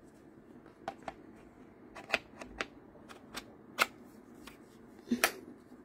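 Several irregular hard-plastic clicks and knocks as a jar-owl 21V cordless drill and its battery pack are handled, the battery being fitted at the base of the drill's handle. The loudest knocks come about two-thirds of the way in and near the end.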